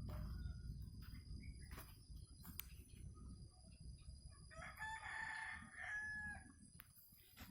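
A rooster crowing once, faintly, a single drawn-out call of about a second and a half near the middle.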